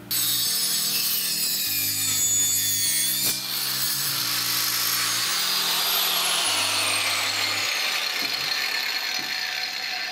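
A Makita GA5030 angle grinder fitted with a circular saw blade, giving a loud rasping whine as it saws wood, its pitch sinking slowly. Background music chords play underneath.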